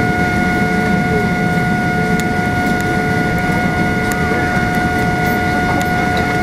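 Cabin noise of an Airbus A350-900 taxiing, heard beside the wing: its Rolls-Royce Trent XWB engine at idle gives a steady whine of several held tones over a low rumble.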